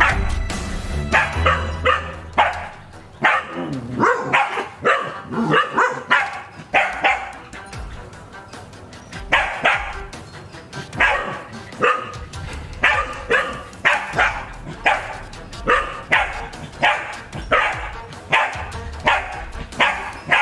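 Dogs barking at a snake they are holding at bay, a long run of short, sharp barks at about one to two a second, with background music underneath.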